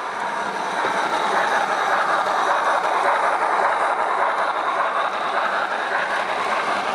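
Sound-fitted OO-gauge Hornby LMS 8F model steam locomotive, its Loksound v5 decoder playing steam engine running sounds through a small speaker in the tender. The sound is steady, with no clear beat.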